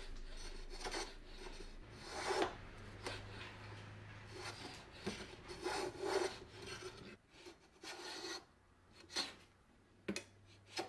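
Stanley No. 78 rebate plane cutting a rebate along the edge of a Tasmanian oak board: a run of short, uneven scraping strokes of the iron through the wood, about one a second.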